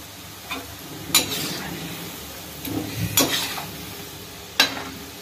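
Balushahi deep-frying in oil in a kadhai, a steady sizzle, with a metal slotted spoon clinking sharply against the pan about four times as the pieces are stirred.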